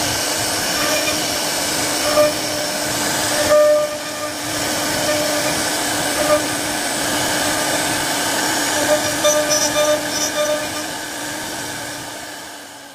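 CNC router spindle running with a steady whine while its bit carves a floral relief into a wooden panel, the cutting noise rising and falling a little as the bit bites. The sound fades out near the end.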